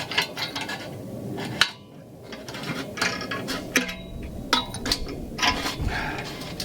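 Irregular metallic clinks, clicks and knocks of hand tools and hardware being worked on a dually rear wheel.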